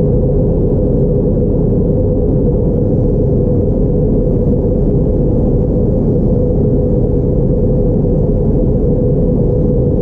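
Airbus A321neo cabin noise in flight: a loud, steady, low drone of engines and airflow heard at a window seat beside the engine, with a steady hum running through it.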